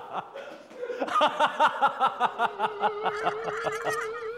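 A group of people laughing hard in a quick run of ha-ha bursts that starts about a second in, with one voice holding a wavering note underneath.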